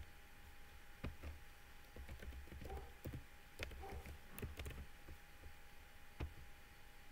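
Several faint, separate clicks and knocks at uneven intervals, the sharpest about a second in and near six seconds, over a faint steady tone.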